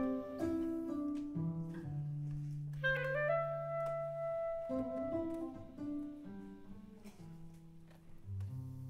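Clarinet and seven-string guitar playing a live duet. The clarinet holds a long note about three seconds in, over low guitar notes; the second half is quieter, with the guitar's low notes to the fore.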